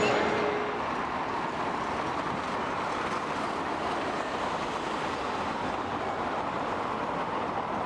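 Steady city traffic noise: an even rumble and hiss with no distinct events. A faint steady hum fades out in the first second.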